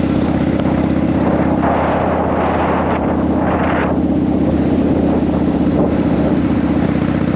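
Cruiser motorcycle's engine running steadily at road speed, with wind rushing over the microphone. A louder rush of noise swells for a couple of seconds about two seconds in.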